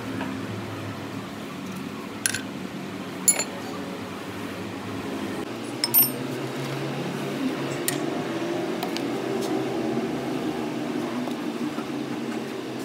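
Steady mechanical hum that grows a little louder about halfway through, with a few sharp light clicks, about one a second, early on and a single click near the middle.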